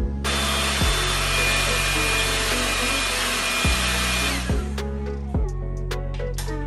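A power tool runs steadily for about four seconds, a hiss with a faint high whine, then winds down and stops. Background beat music plays underneath.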